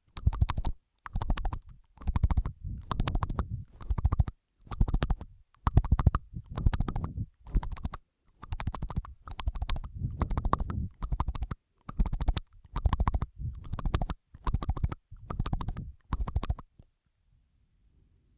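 Wet mouth sounds close to the microphone: licking and smacking in short crackly bursts, about one a second, stopping about 17 seconds in.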